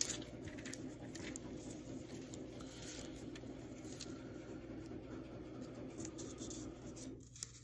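Quiet rustling and scratching of thin Bible pages being leafed through and turned.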